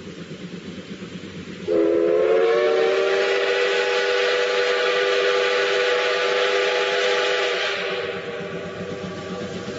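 Steam locomotive whistle blowing one long blast of several tones together, starting about two seconds in, sliding up slightly at first, then holding and fading out near the end. A steady low rumble of the train running lies under it.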